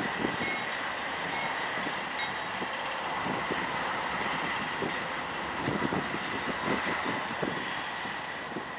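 Union Pacific diesel locomotives and railcars moving slowly in a rail yard: a steady run of engine and rolling noise with a faint high tone, and irregular clanks and clicks from wheels and cars, thickest past the middle.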